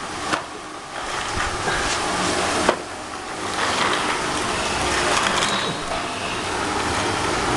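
Plastic wheels of a baby walker rolling over a hard tiled floor, a steady rumble with a couple of knocks.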